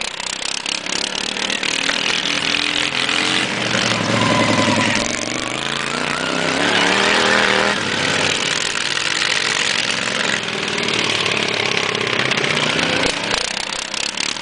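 Modified racing lawn mower engine running hard, its pitch rising and falling as it is revved up and eased off, loudest about a third and a half of the way through.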